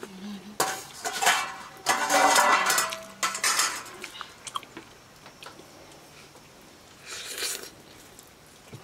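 Metal utensils clinking and scraping against cookware in several short clattering bursts, the loudest one to three seconds in, then quieter with one more brief clatter near the end.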